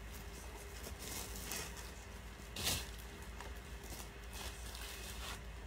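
Soft rustling of clothing as a pair of wide-leg trousers is pulled on and the fabric handled, with a brief louder swish about halfway through, over a faint low hum.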